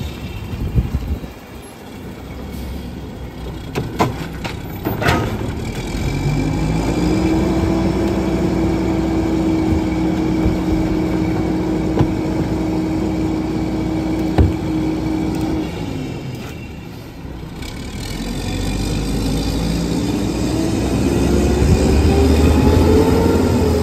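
Old Mack rear-loader garbage truck with a McNeilus packer body running. Its engine speeds up to a steady higher pitch about six seconds in, drops back about ten seconds later, then rises again near the end as the packer works a load of yard waste. Sharp knocks of trash cans banging against the hopper come in between.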